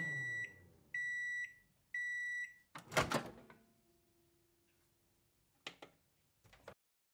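Microwave oven finishing its cycle: the running hum dies away, three high beeps sound about a second apart, and then the door unlatches with a clunk about three seconds in. A couple of faint clicks follow near the end.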